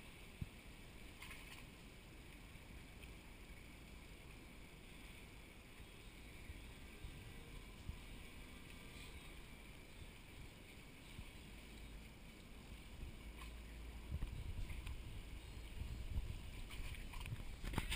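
Faint low rumble of a small water taxi's engine, growing louder over the last few seconds as the boat comes in to the dock.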